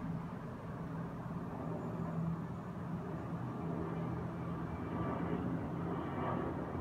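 Jet airliner flying overhead: a steady engine rumble, a little louder in the second half.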